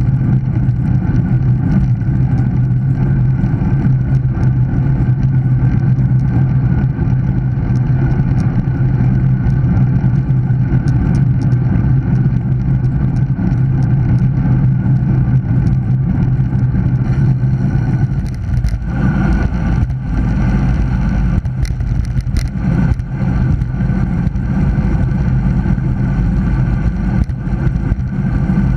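Steady wind roar buffeting the microphone as a road bike rolls fast along tarmac, with tyre noise underneath. A few sharp ticks come in the later part.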